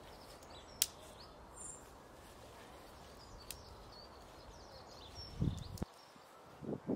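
Sharp clicks, twice, as the tent inner's plastic clips snap onto the aluminium poles, over quiet garden ambience with a bird chirping briefly. A short low rustle of handling about five seconds in.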